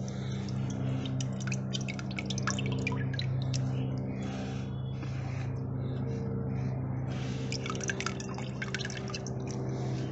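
Water splashing and dripping as a hand scoops and lifts through a shallow plastic tub of water and plants: many small splashes and drips, with a steady low hum underneath.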